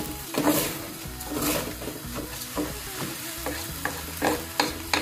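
Washed rice frying in olive oil in a non-stick pan, sizzling, while a spatula stirs and scrapes it with short, irregular scraping clicks.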